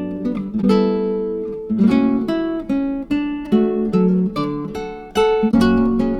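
Background music played on an acoustic guitar, with chords strummed and picked about every half second, each left ringing and fading before the next.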